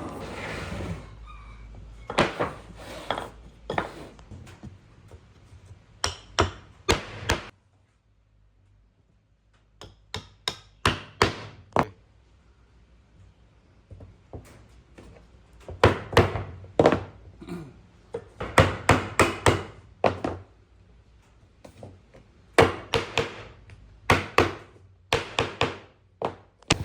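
Hammering on wood: short bursts of quick, sharp blows, several strikes to a burst, with pauses of a second or more between bursts.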